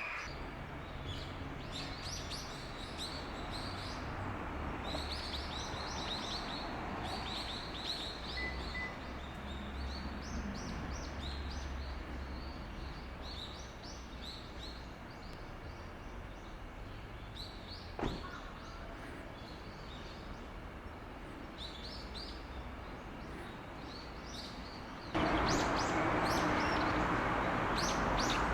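Daurian redstart calling: short, high chirps repeated many times over a steady background noise. A single sharp click sounds a little past the middle, and the background noise gets suddenly louder near the end.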